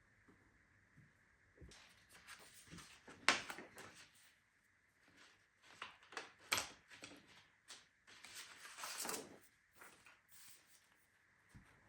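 Soft, intermittent rustling and light clicks of hand-embroidery work, with thread and cloth being handled, including one longer rustle near the end.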